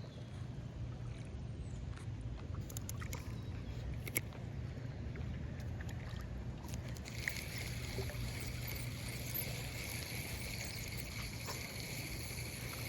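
Paddle boat on the water: a steady low churning and water noise, with a few light knocks in the first few seconds. About seven seconds in, a steady high-pitched buzz joins in.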